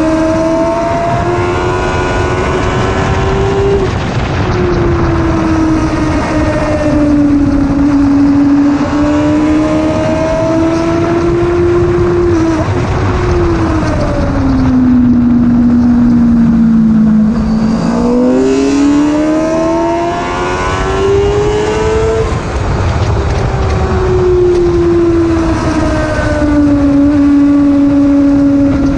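Onboard sound of a 1000cc superbike engine at speed on a race track. The engine note climbs and drops sharply at gear changes, sinks to its lowest a little past the middle as the bike slows, then climbs again. A steady rush of wind noise runs underneath.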